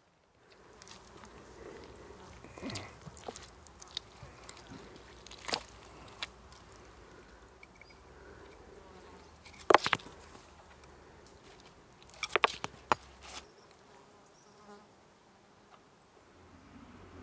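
Knife cutting into and hands tearing apart a foil-wrapped roasted lamb: crackling and scraping of crisp roasted skin and foil, with a sharp crack about ten seconds in and a quick cluster of cracks a couple of seconds later.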